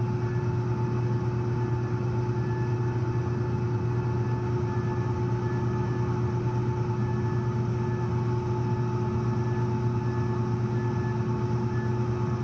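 Rooftop HVAC unit with its fans running: a steady, unchanging hum with a strong low drone and a few fixed tones above it.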